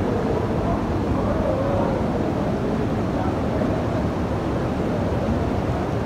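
Steady rush of a waterfall and the rocky stream below it, a heavy, low, unbroken noise of falling and churning water.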